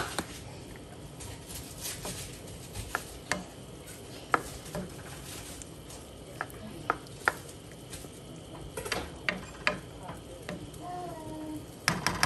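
A black plastic spoon stirring a chunky beef stew in a metal skillet, scraping and knocking against the pan in irregular clicks.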